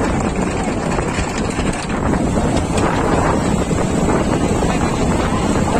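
Wind buffeting the microphone over the steady running of a boat on the river.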